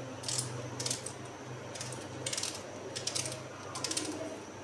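Small knife slicing through a raw onion held in the hand, an irregular series of short crisp cuts, under a faint steady low hum.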